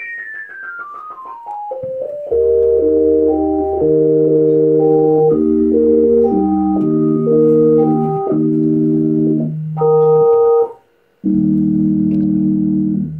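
Yamaha A4000 sampler playing back simple synthetic waveform samples as a keyboard test. A quick falling run of single pure tones gives way to held chords over a low bass tone, with a brief gap near the end before a last chord.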